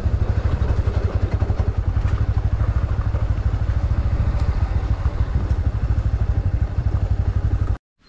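Motorcycle engine running steadily while being ridden, with a fast, even low pulsing from the exhaust under road and wind noise. It cuts off suddenly near the end.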